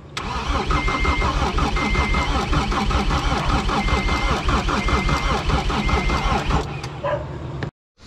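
Diesel engine of a John Deere 326D skid steer turning over on the electric starter in an even, rapid rhythm without catching, stopping near the end: fuel is not yet getting through after the crankshaft rebuild. A short high beep sounds about once a second.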